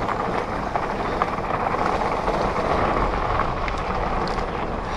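Mountain bike rolling down a dirt singletrack trail, heard from the rider's camera: a steady rush of wind and tyre noise with scattered light clicks and rattles.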